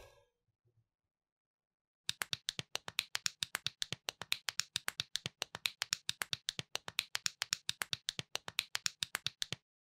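Plastic LEGO bricks clicking into place, a rapid, even run of small sharp clicks that starts about two seconds in and stops just before the end.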